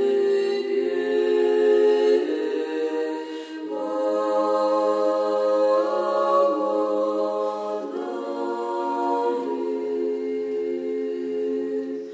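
Background music: an unaccompanied choir chanting in long held chords that shift every couple of seconds.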